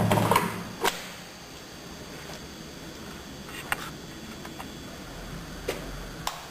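A few sharp clicks and knocks over a low, steady background, the loudest about a second in and the others spread out singly after it.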